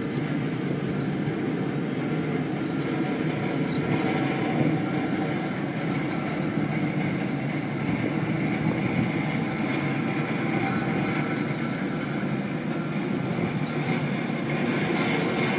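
Tugboat's diesel engine running steadily as it pushes a barge past, a continuous low drone.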